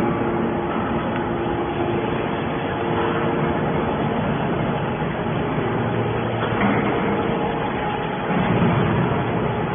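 Hydraulic scrap metal baler running: a steady machine noise with a hum, swelling slightly louder twice near the end.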